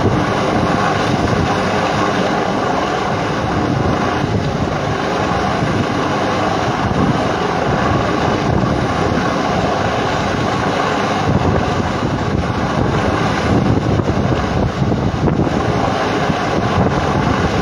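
Steady helicopter rotor and engine noise, with wind on the microphone adding a rumble that grows stronger about two-thirds of the way through.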